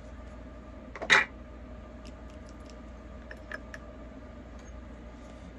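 Makeup containers being handled while rummaging for a product: one sharp clack about a second in, then a few faint light clicks.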